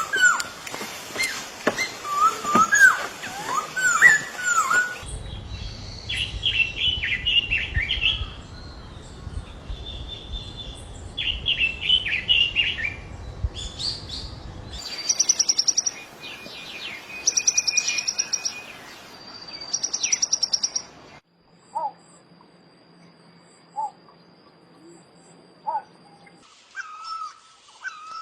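Songs and calls of several different wild birds, heard as separate recordings one after another, each a run of repeated whistled or chirping notes that gives way to the next every five to seven seconds.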